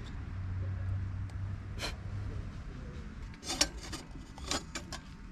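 Small metal clicks and rubbing from handling a Captain Stag oil lantern just after it is lit: the wick knob is turned and the frame around the glass globe is worked, giving a few separate clicks.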